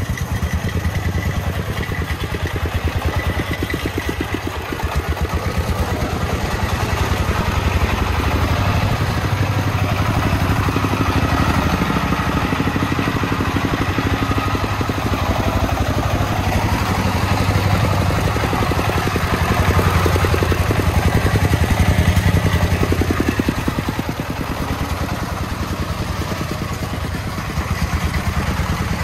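Small diesel engine of a công nông (a homemade three-wheeled truck) running steadily with a fast, even chugging beat, a little louder in the middle stretch.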